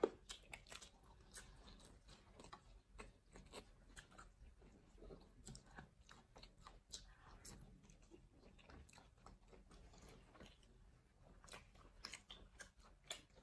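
Faint chewing and wet mouth clicks of two people eating pizza, a scatter of small irregular clicks, with one sharper click right at the start.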